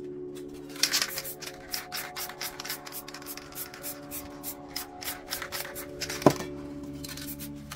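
Quick, irregular rubbing and scraping strokes of hand work on a painting surface, several a second, over background music with held notes. One sharp tap about six seconds in.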